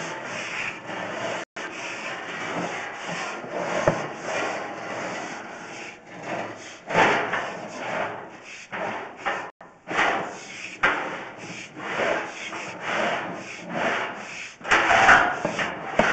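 Sewer inspection camera push cable being fed quickly into the drain line: repeated rubbing and scraping strokes, about two or three a second, as the cable slides through the hands and along the pipe.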